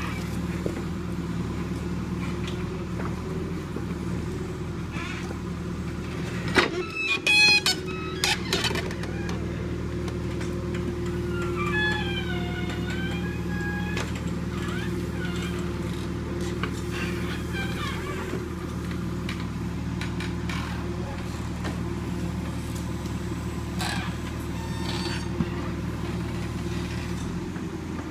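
John Deere backhoe loader's diesel engine running steadily. A short burst of loud clanks and scrapes about seven seconds in.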